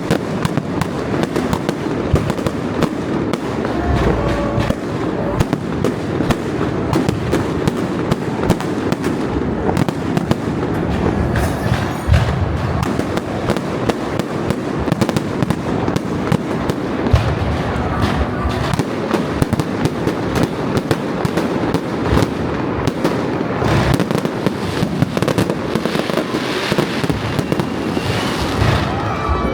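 Fireworks display: a dense, unbroken barrage of bangs and crackling shell bursts.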